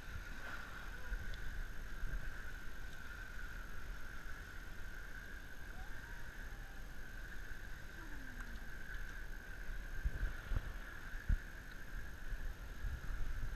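Elephants wading through a shallow muddy river, water sloshing around their legs, over a steady high drone. A few low knocks come near the end.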